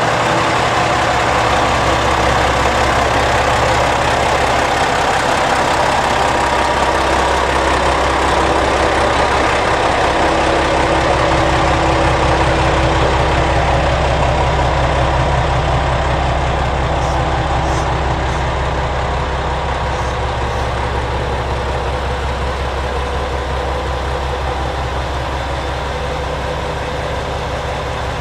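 JR Shikoku 2000 series diesel multiple unit standing at a platform, its diesel engines idling with a steady low hum. The sound eases slightly a little past the middle.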